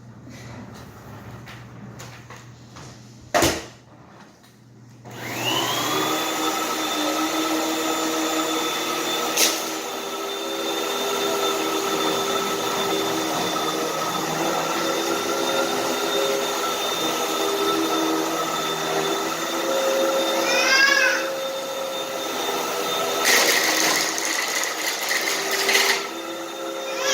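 Vacuum cleaner: a sharp click, then the motor spins up about five seconds in and runs steadily with a whine. Near the end there is a few-second burst of crunching as dirt is sucked up.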